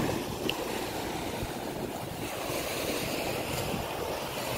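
Sea surf washing onto a sandy beach, a steady rushing hiss, with wind buffeting the phone's microphone.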